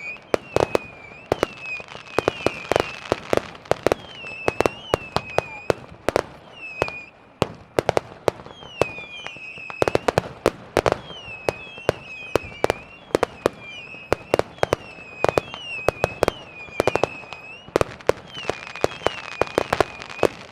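Fireworks going off in a dense, irregular run of sharp bangs and cracks, several a second, with short high whistling tones that dip and rise repeating in between.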